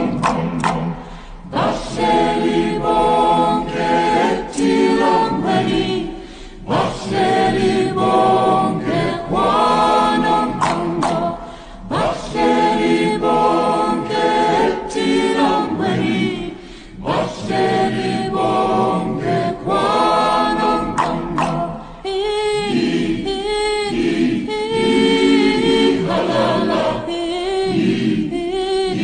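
A cappella choir singing in Xhosa, several voices in harmony, with sharp tongue clicks of the language's click consonants cutting in between and within the sung phrases.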